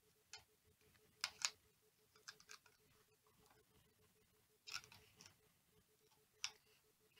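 Hobby knife blade nicking and scraping through the covering film on a model airplane's fuselage: a few faint, short clicks and scratches with near silence between them.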